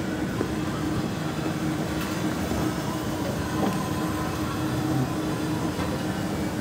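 Steady mechanical rumble with a low, even hum and a few faint clicks.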